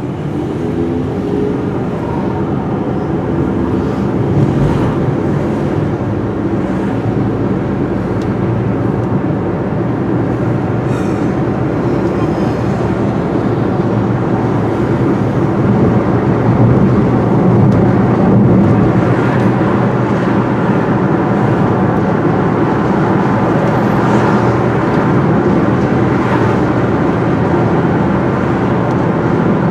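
Steady road and engine noise heard from inside a moving car, growing a little louder after the first several seconds.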